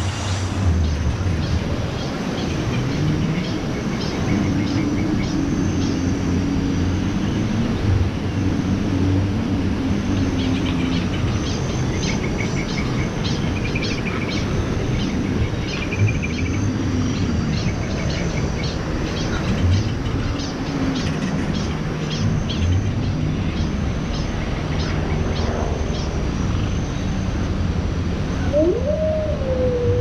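Steady outdoor background noise, heaviest in the low end, with scattered faint clicks and a few short high chirps. Near the end, a brief tone rises sharply and then slowly falls.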